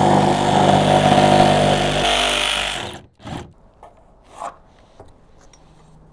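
Cordless reciprocating saw cutting through the OSB sheathing of a wooden firewall, running steadily, changing tone about two seconds in and stopping about three seconds in. A couple of light knocks follow.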